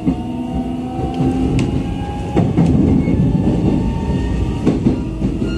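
Running noise inside a JR East E129 series electric train: the traction motors' whine rises slowly in pitch as the train gathers speed, then stops about halfway through at a sharp click. After that the rumble of wheels on rail goes on, with scattered clicks over rail joints.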